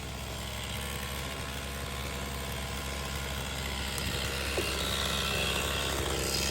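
An engine running steadily, growing gradually louder, with no crash or impact.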